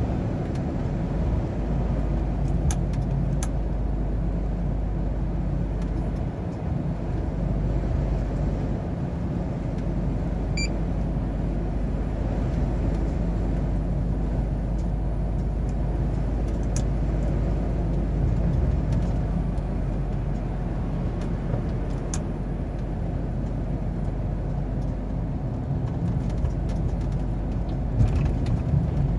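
Truck on the move, heard from the cab: a steady low drone of engine and tyre noise, with a few faint ticks.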